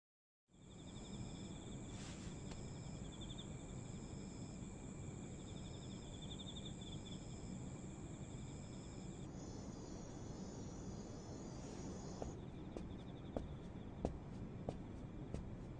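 Night-time cricket chirring: steady high trills over a low hiss, fading in after a brief silence at the start. Over the last few seconds come a handful of light, sharp taps, about one every half second.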